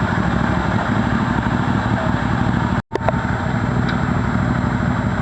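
Motorcycle engine running steadily, with a brief break in the sound just under three seconds in.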